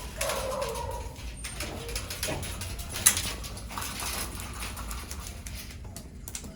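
Puppies whining and yelping in their kennels, short falling cries. One sharp click about three seconds in.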